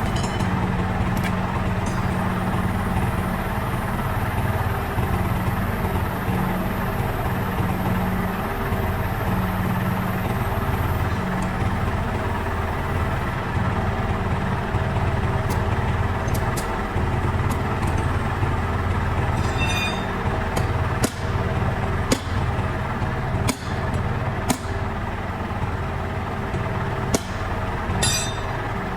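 An engine idling steadily, with a few sharp metallic knocks in the second half.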